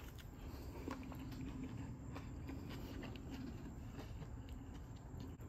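Faint crunching and chewing from a bite of a crispy fried shark sandwich in a fried bake, with small scattered clicks, over a low steady background hum.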